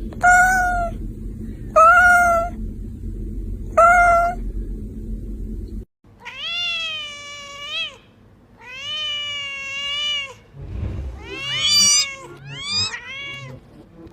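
Domestic cat meowing: three short meows about two seconds apart. Then, after a cut, two long drawn-out meows and a run of quicker meows that rise and fall near the end.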